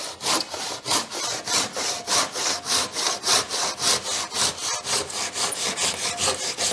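Bahco Superior handsaw cutting along a timber 4x4 fence post in quick, even back-and-forth strokes. It is sawing through the last 2 or 3 millimetres of wood that a circular saw left uncut.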